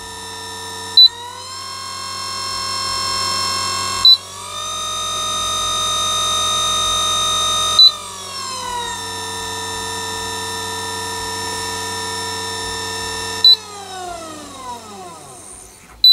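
Freshly reassembled 200 W DC treadmill motor on its test run under a DLM speed controller, a whine whose pitch rises as it speeds up, steps higher, then drops, and finally falls away as the motor winds down near the end. The control panel beeps sharply at each speed change, the loudest sounds, with a quick run of beeps at the very end.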